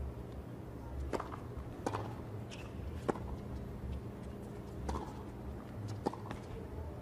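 A tennis ball being struck and bouncing on a hard court: about five sharp pops at uneven spacing over a steady low stadium hum, with a brief squeak in between.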